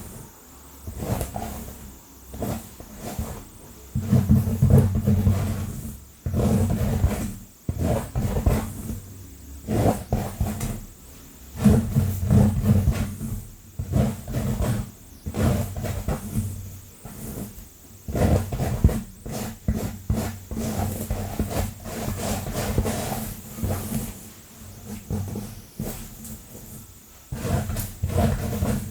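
Long fingernails scratching fast and hard through hair and across a scalp, close to the microphone, in rapid irregular strokes with a heavy low rubbing rumble.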